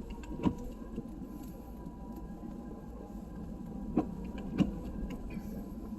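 Vehicle cabin noise while driving slowly on a snow-covered road: a steady low rumble with three sharp knocks, about half a second in, at four seconds and just after four and a half.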